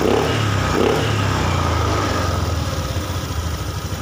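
Honda Vario 110 scooter's single-cylinder engine idling steadily, then dying away over the last second or so as it is switched off. The engine is suspected of a weak crankshaft position sensor (pulser) that makes it stall when hot.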